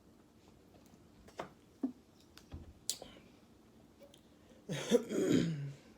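A woman clears her throat once, loudly, near the end, after a few faint short clicks.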